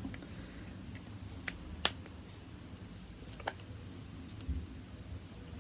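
A few small, sharp clicks from the safety catch, plug and spring of a Remington Express air rifle's trigger unit being worked by hand; the loudest comes about two seconds in.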